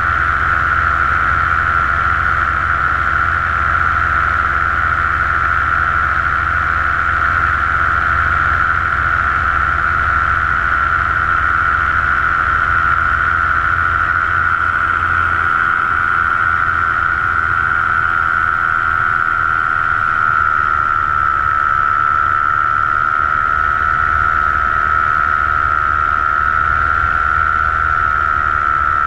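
Paramotor engine and propeller running steadily in flight, a constant drone with a slight dip in pitch about twenty seconds in.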